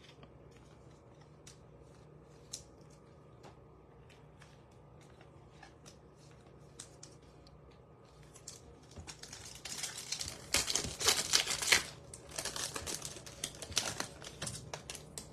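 Foil wrapper of a Topps Chrome baseball card pack crinkling and tearing as it is opened, starting about nine seconds in. Before that there are a few faint scattered clicks.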